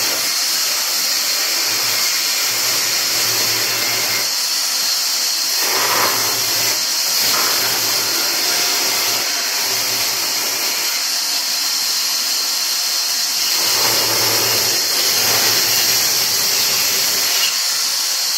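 Band saw running, its blade cutting a curved piece of hardwood, with a steady high hiss and a low hum. The sound swells twice, around six seconds in and again around fourteen to sixteen seconds.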